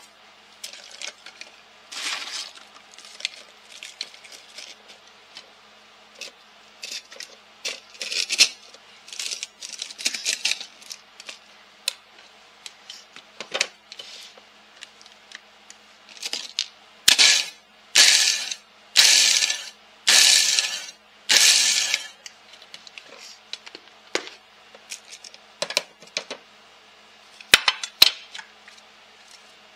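Pork rinds rustling and rattling as more are added to a food processor bowl. Then, from about two-thirds of the way in, the food processor runs in five short pulses, each under a second, grinding the pork rinds into crumbs.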